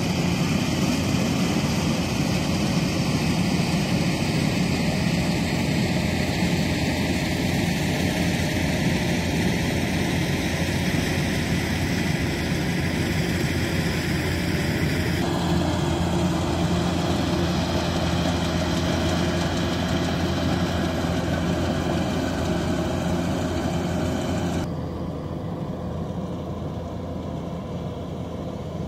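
Diesel engine of a rice combine harvester running steadily under load, a continuous drone that shifts in tone about halfway through and gets a little quieter near the end.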